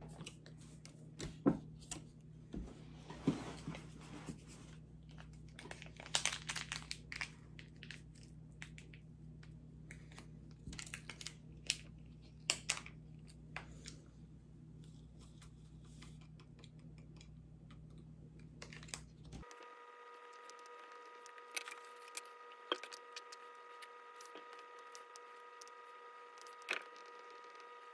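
Scattered light taps and clicks of fingertips and long nails on a tablet and its aluminium stand, over a faint low steady hum. About two-thirds of the way in, the background switches abruptly to a higher steady whine, and a few more taps follow.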